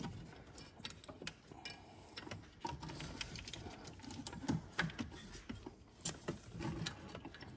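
Scattered light clicks, taps and rattles at irregular intervals: small engine parts and tools being handled and knocked together while reaching around a car engine's fuel rail.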